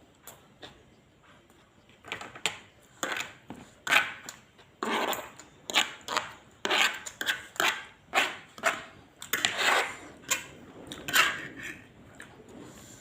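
Close-up eating sounds of fried rice vermicelli: a run of short, noisy chewing and utensil-scraping noises, about one or two a second, starting about two seconds in and dying down near the end.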